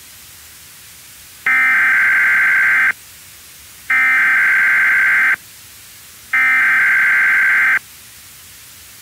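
Emergency Alert System SAME header: three bursts of digital data tones, each about a second and a half long with about a second's pause between them, over a steady background hiss.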